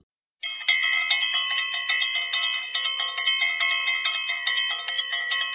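Bell-ringing sound effect: a bright metallic ring struck over and over, about three or four times a second. It starts about half a second in.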